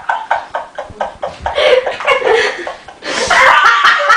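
A person laughing hard in quick, rapid bursts of about five a second, breaking into a louder, higher laugh near the end.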